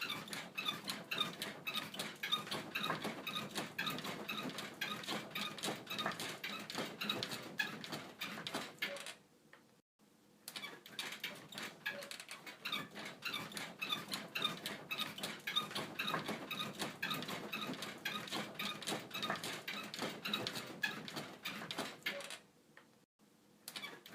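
Bed creaking and squeaking in a fast, steady rhythm, as if from repeated rocking on the mattress. It breaks off briefly about ten seconds in and again near the end, then resumes.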